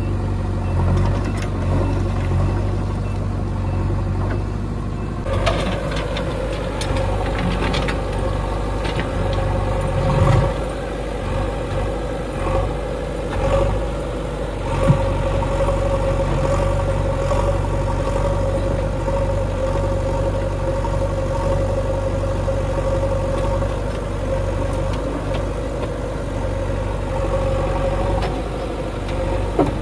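Diesel engines of a Mahindra Arjun 605 tractor and a JCB 3DX backhoe loader running steadily. About five seconds in, a steady higher tone joins the engine hum, and there are a couple of brief knocks.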